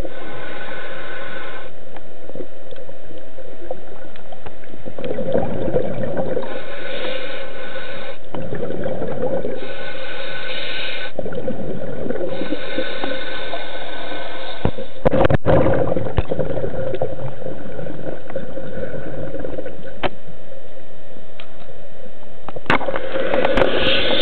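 Muffled water noise picked up by a camera held underwater, swelling and easing every few seconds over a steady low hum.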